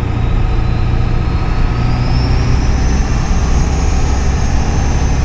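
Ford 7.3 Powerstroke V8 turbodiesel heard from inside the cab while driving, a deep steady engine drone under a thin turbo whine. The whine rises in pitch from about two seconds in and then holds high.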